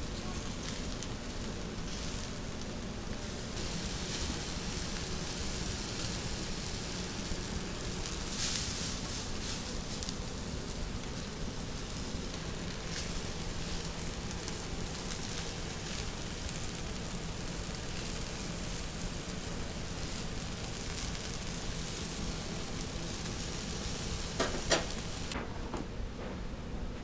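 Chicken skewers sizzling as they cook, a steady hiss with a couple of sharp clicks near the end.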